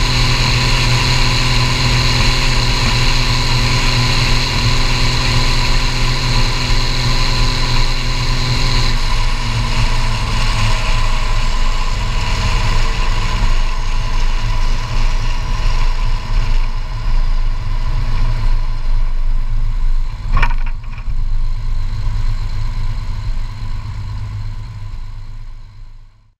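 Case IH 1455XL tractor's turbocharged diesel running through a straight-pipe exhaust under way. About nine seconds in the engine note changes and eases off, while a faint high whine slowly falls in pitch. There is a single sharp knock about twenty seconds in, and the sound fades out just before the end.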